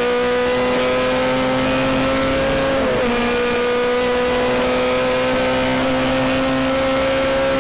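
Racing car's 1.6-litre engine heard from inside the cabin, pulling at high revs with its pitch climbing slowly; a brief dip in pitch about three seconds in marks a quick gear change before it climbs again.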